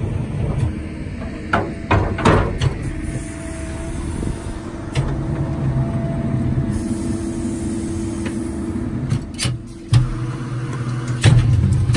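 Roddie Pit Shot directional drill running on its hydraulic drive: a steady mechanical hum whose low part strengthens and eases, broken by several sharp metallic knocks of drill rods and steel fittings.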